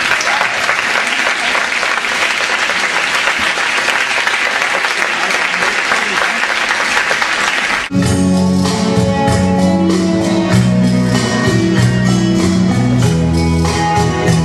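Audience applauding for about eight seconds, then an abrupt switch to Latin dance music with a steady beat and a bass line.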